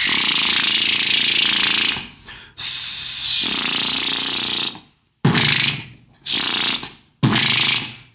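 Beatboxed outward lip bass: the lips buzz outward while a hissing 'sh' and 's' are shaped inside the mouth, blending into one rattling tone. Two long held notes come first, then three short ones.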